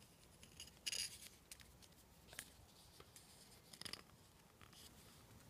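Faint clicks and rustles of a small plastic Nendoroid figure being handled as its parts are swapped: a short cluster about a second in, then single clicks twice more.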